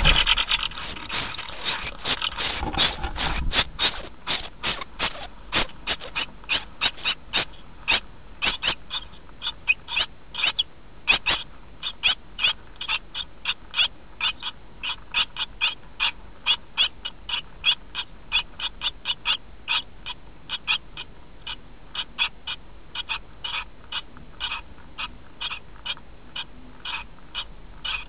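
Great tit nestlings begging in the nest box: high-pitched calls, dense and almost unbroken for the first few seconds while a parent is at the nest, then breaking into short separate calls about two a second that slowly space out.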